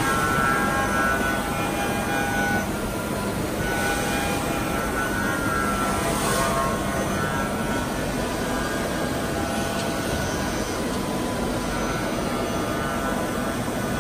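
Five-axis CNC milling machine cutting a metal block: a steady machining whine made of several high tones that shift in pitch every few seconds as the tool moves, over a constant background rumble.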